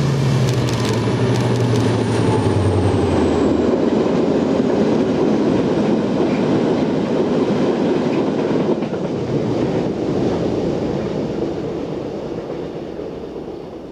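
Irish Rail 071 class diesel locomotive's EMD two-stroke V12 passing, its engine note and a high whine dropping in pitch and fading in the first few seconds. A long rake of ore wagons then rolls by with a steady rumble of wheels on rails and occasional clicks, dying away near the end.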